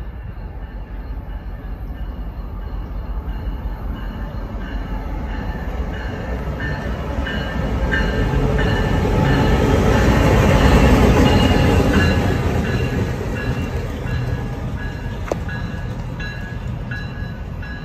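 CSX GP38-3 diesel-electric switching locomotive, with its 16-cylinder EMD 645 two-stroke engine, passing at low speed. The engine rumble and wheel noise swell to a peak about eleven seconds in and fade as it moves away, with thin high intermittent tones over the rumble.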